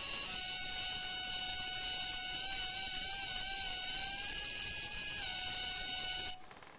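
Metal halide arc lamp whose arc itself is sounding like a synthesizer: a held electronic tone that wavers slightly over a loud hiss, shifting about five seconds in, then cutting off suddenly about six seconds in.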